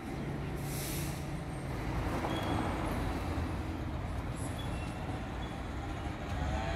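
Town street ambience: a steady low rumble with a short hiss about a second in.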